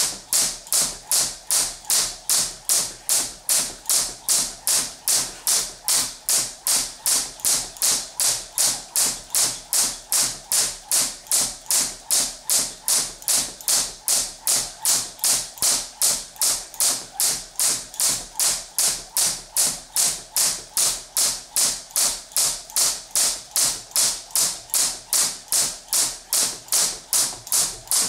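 Crossrope jump rope cable slapping the floor on every turn, a steady rhythm of sharp taps at about two and a half a second.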